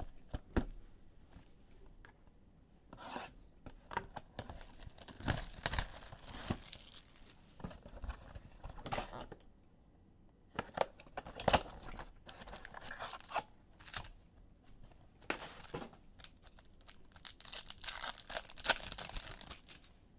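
Trading card pack wrappers being torn open and crinkled, in a series of short, irregular rustling bursts.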